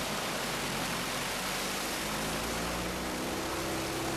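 Lycoming IO-390 four-cylinder aircraft engine and its constant-speed propeller running steadily at run-up power, around 2000 RPM, heard from inside the RV-8's cockpit: an even drone with a low hum under it.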